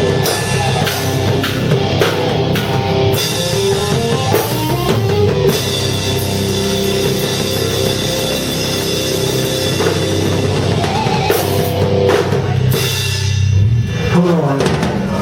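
Rock band playing heavy, loud rock with the drum kit to the fore.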